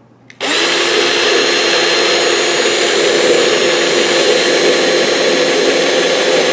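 Power drill running steadily, drilling a pilot hole through a cypress strip into the fiberglass stern. It starts about half a second in and holds one even pitch.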